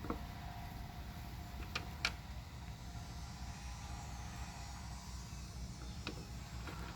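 A few sharp plastic clicks as washing-machine agitator dogs are handled and fitted into the agitator, two of them close together about two seconds in, over a steady low hum.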